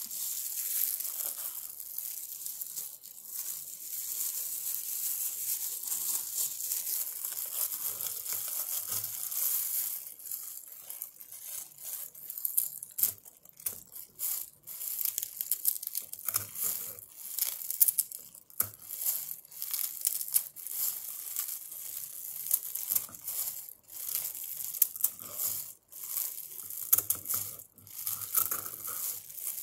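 Scissors snipping through a folded bundle of pandan leaves, a long run of separate sharp snips at irregular spacing. For about the first third, before the snipping starts, there is a steady rustling handling noise.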